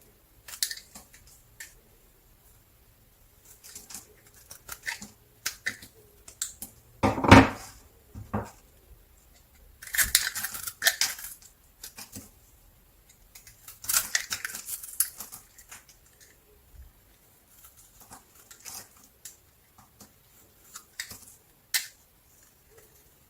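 A blade cutting a bar of soap into strips: irregular crisp crunches and clicks, with longer crunchy cuts around ten and fourteen seconds in. About seven seconds in, a heavier thud is the loudest sound.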